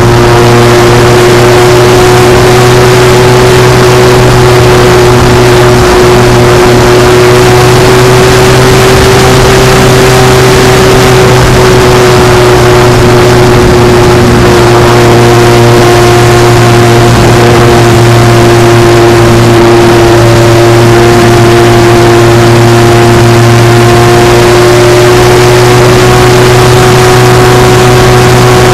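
Electric motor and propeller of a Durafly T-28 Trojan RC model plane running steadily in flight, heard very close from a camera mounted on the plane: a loud, steady whine over rushing air noise. The pitch rises slightly about a third of the way in and eases back down.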